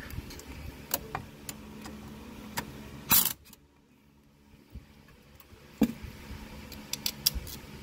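Scattered metallic clicks and clinks of a wrench and socket working loose the 10 mm centre bolt of a car's A/C compressor clutch, with a sharper knock about three seconds in and another about six seconds in.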